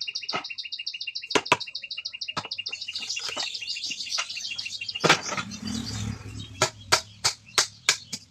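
Irregular sharp knocks of a hammer and chisel striking old wooden door-frame timber, with a rasping scrape about five seconds in and a quick run of knocks near the end. A bird calls throughout with a rapid, two-pitched chirp.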